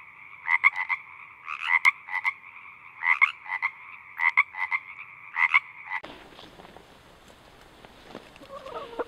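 A chorus of frogs calling, a steady trill with louder croaks standing out every half second or so. It cuts off suddenly about six seconds in, giving way to outdoor background noise, and short clucking calls begin near the end.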